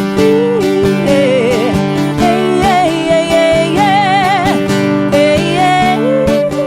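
Instrumental break of a sertanejo song: guitar accompaniment under a lead melody line that wavers with vibrato.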